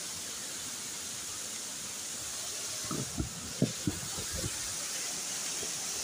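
Steady rushing hiss of a waterfall. From about halfway, a few short low thumps sound over it.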